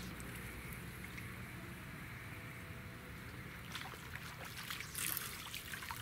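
A hooked fish splashing and thrashing at the water's surface as it is reeled in toward the bank: a run of irregular splashes starting a little before the four-second mark, loudest about a second later.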